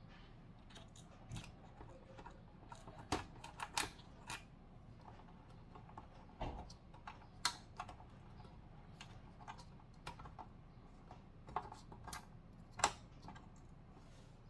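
Scattered, irregular light clicks and taps of a screwdriver working a small screw loose, a few of them sharper than the rest.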